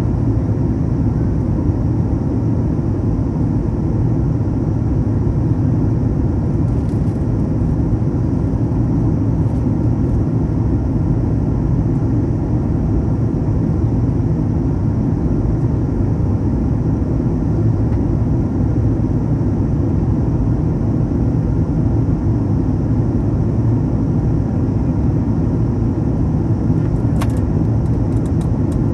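Steady cabin noise of a Boeing 737 MAX 9 in descent, heard from a seat by the wing: the drone of its CFM LEAP-1B engines mixed with air rushing past the fuselage. A faint click comes near the end.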